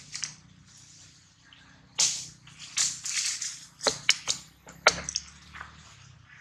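Rustling and crackling from a baby monkey moving in dry leaf litter and twigs, with a cluster of sharp clicks and snaps a little past the middle.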